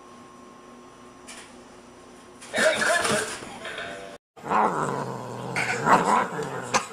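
A small toy Christmas tree sets off suddenly and loudly about two and a half seconds in as the cat triggers it. After a cut, a cat gives long, wavering growling yowls.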